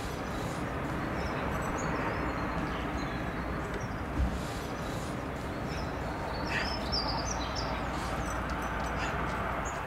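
Steady distant rumble of an Airbus A320 airliner's jet engines, with small birds chirping over it, most busily just past the middle, and one brief low thump about four seconds in.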